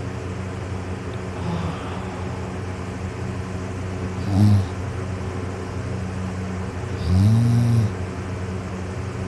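A person snoring in their sleep: two loud snores, a short one a little before halfway and a longer one of just under a second about three-quarters through, over a steady low hum.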